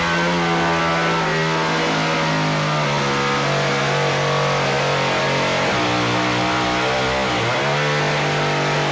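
Two-stroke chainsaw running at high revs as it cuts through a fabric backdrop; its engine note sags briefly and picks up again near the end.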